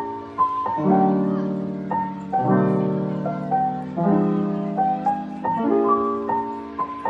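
Background piano music: slow, sustained chords that change about every second and a half, with a light melody of short notes above them.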